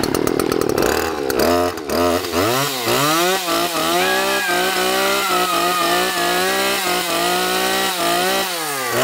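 Gas chainsaw revved up sharply several times, then held at high speed with small dips. It drops back and revs again near the end.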